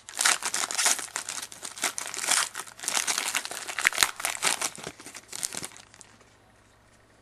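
Wrapper of a 2011-12 Elite hockey card pack crinkling and tearing as it is ripped open by hand, in a run of irregular crackles. It stops about six seconds in.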